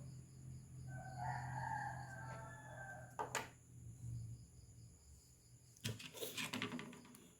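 A steady low hum with a pitched call of about two seconds in the background, like a distant bird, then a single sharp click about three seconds in and a short clatter near the end.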